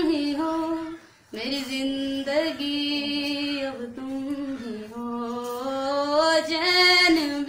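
A woman singing unaccompanied, holding long drawn-out notes that bend gently in pitch, with a short breath pause about a second in.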